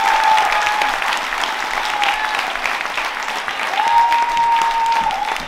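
Theatre audience applauding and cheering at the end of a dance number, with a long high-pitched cheer rising out of the clapping about four seconds in.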